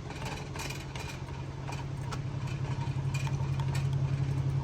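A spoon stirring sauce in a pot, with scattered short scrapes and clinks against the pot, over a steady low hum that slowly grows louder.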